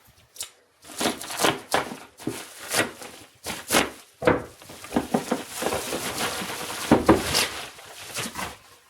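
A shipping package being opened by hand: cardboard and packing material rustling and crinkling, with irregular handling knocks and a longer spell of rustling or tearing near the middle.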